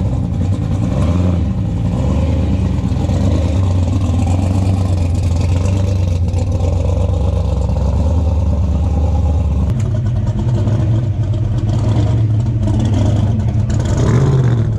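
Supercharged V8 of a drag car, its blower standing up through the hood, running loud and low at slow rolling speed, with a short throttle blip near the end.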